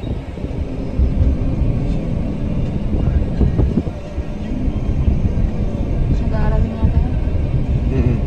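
Automatic car being driven: a steady low rumble of road and engine noise, a little louder from about a second in.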